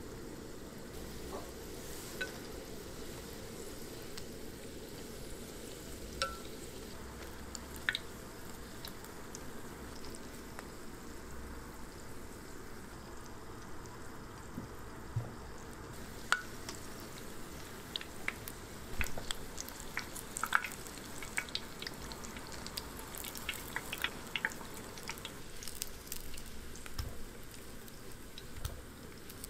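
Breaded rice croquettes deep-frying in hot oil: a steady sizzle with scattered pops and crackles that come more often in the second half.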